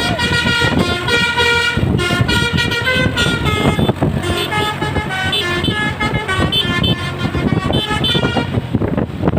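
Basuri musical horn, a set of electric trumpet horns, playing a tune: a run of held notes that change pitch every half second or so, over a low rumble. The tune stops near the end.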